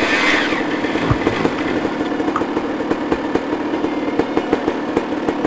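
Dirt bike engine, a rev dying away at the start, then idling steadily with a fast, even patter.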